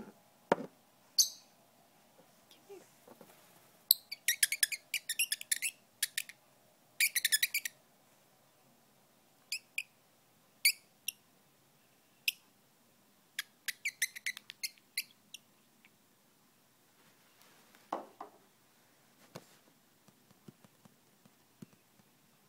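Pet lovebird making quick bursts of sharp, light clicks and taps, with a short high chirp about a second in and scattered single ticks between the bursts.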